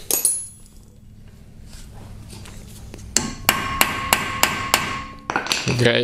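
A hammer striking a Phillips bit held in a metal socket, about seven quick blows with a metallic ring, a little over three seconds in. The bit is being driven into a rusted brake rotor retaining screw to break the rust loose so the screw can be turned out without rounding it.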